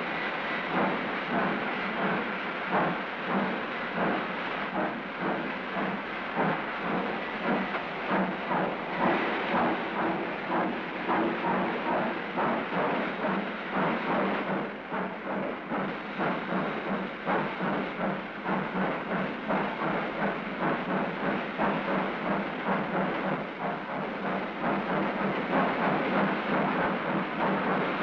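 Union Pacific 9000-class 4-12-2 three-cylinder steam locomotive working hard, its exhaust chuffing in a steady rhythmic beat, the three-to-a-cycle '1 2 3' beat that its third cylinder gives. The beats come closer together in the second half.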